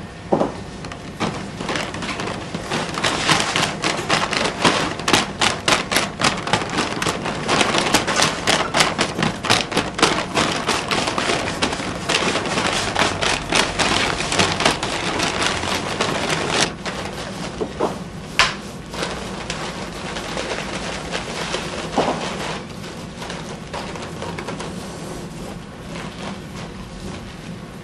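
Shoji paper of a paper lamp shade rustling and crinkling as hands work it and press it flat, with a dense run of crackles for the first half and sparser crackles after, including one sharp click about two-thirds in.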